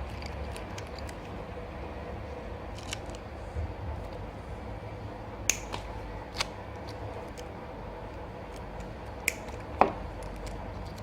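Scattered sharp clicks and light taps of small laptop parts and tools being handled, a few seconds apart, over a steady low hum.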